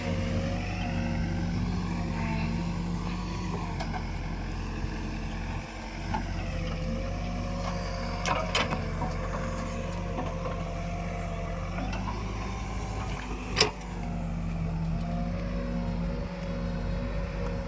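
Backhoe loader's diesel engine running steadily under work, its pitch wavering slightly up and down. A few short sharp knocks come about halfway through, and one louder knock comes about two-thirds of the way in.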